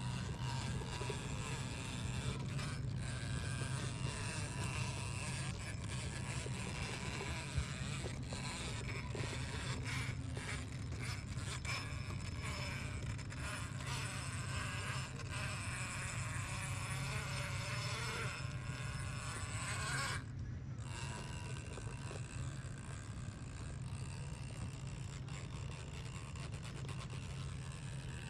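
Brushless electric motor and geared drivetrain of a 1/10-scale Axial RBX10 Ryft RC rock bouncer buzzing steadily as it crawls over rock, with scattered clicks and scrapes from the tyres and chassis on stone.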